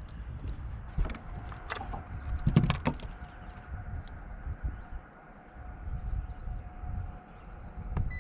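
Steady electric whine, typical of a bass boat's trolling motor, with a cluster of knocks and rattles about one to three seconds in, over a low rumble.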